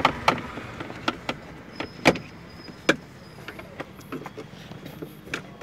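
Irregular sharp clicks and knocks from hands working at a Maruti Swift's gear-shift lever assembly and its cables under the opened centre console. The two loudest come about two seconds and three seconds in.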